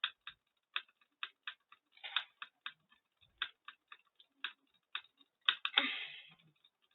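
Rapid computer clicking in a clicks-per-second test, about four sharp clicks a second, slightly uneven, with a short breathy rush of noise about six seconds in.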